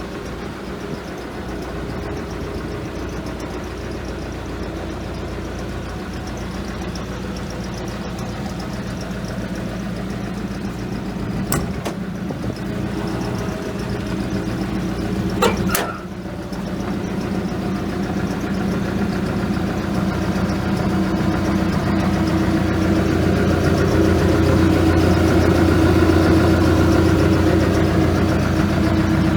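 Hitachi ZX280LC-3 tracked excavator's diesel engine running steadily, growing louder over the second half. Two sharp knocks, about twelve and sixteen seconds in.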